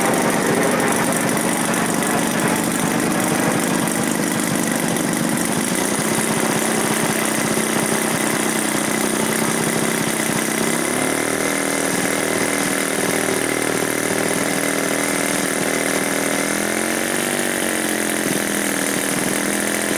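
Engine of a 40% scale Yak-54 RC model plane idling on the ground, steady, with its pitch stepping up slightly about halfway through and rising briefly once near the end.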